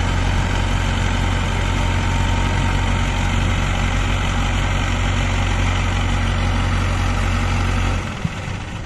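Diesel engine of a wheeled hydraulic crane running steadily at low revs, a low even drone; the drone drops away suddenly near the end.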